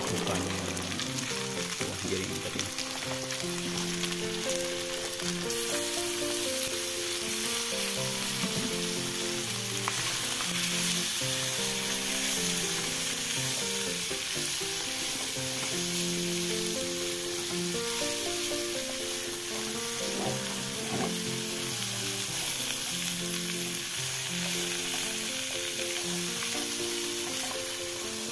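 Sliced jering beans frying in hot oil in a wok, sizzling steadily while a spatula stirs them; the sizzle grows louder a few seconds in. Soft background music with a stepping melody plays underneath.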